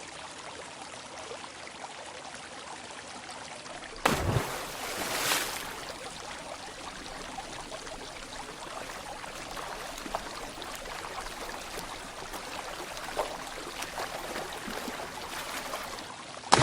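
Calm mountain stream flowing steadily. About four seconds in, a thrown stone hits the water with a deep plunk and a splash.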